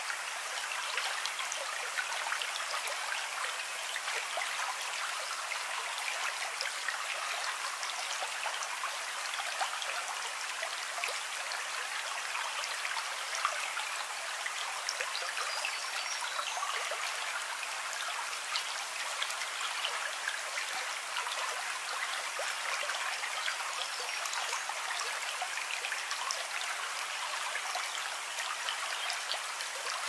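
Steady running water: an even hiss flecked with many tiny ticks, with no low rumble.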